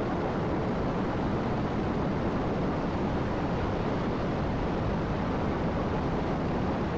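Steady, even rushing noise of storm wind and churning, spraying sea water: a film sound effect of a violent planet-wide storm.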